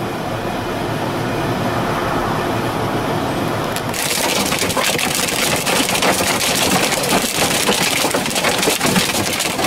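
A steady noise, then about four seconds in, a dense, rapid clatter of hailstones pelting a car's windshield and body.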